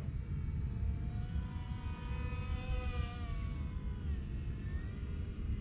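Electric motor and propeller of an XK X520 RC plane whining as it flies by, the pitch rising to a peak about halfway through and then falling away. A steady low rumble of wind on the microphone runs underneath.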